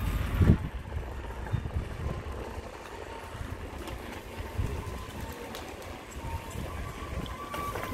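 Wind buffeting the microphone during a bike ride, an uneven low rumble with a strong gust about half a second in.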